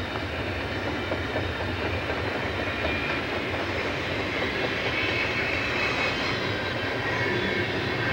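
Diesel-hauled double-stack container freight train rolling past, a steady rumble of locomotives and cars with wheels clacking over rail joints, growing slightly louder as the train draws closer.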